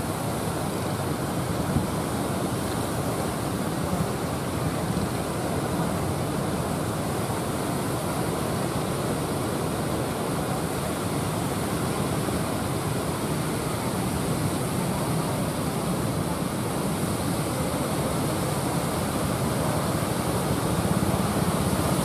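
Steady rush of heavy surf and wind, growing a little louder near the end as a wave breaks.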